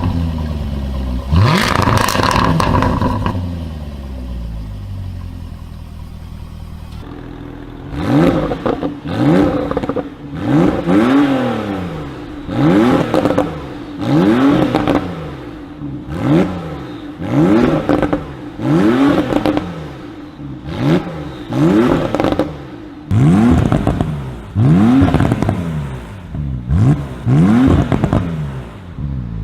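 Performance car exhaust as the engine is free-revved. One rev falls back slowly over the first few seconds. From about eight seconds in, the throttle is blipped again and again, about one short rise-and-fall in revs a second, with crackles and pops in the exhaust as the revs drop.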